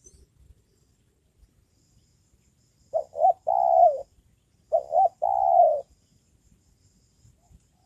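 Caged decoy spotted dove (tekukur) cooing close by: two calls, each two short coos followed by a longer drawn-out coo, about a second and a half apart.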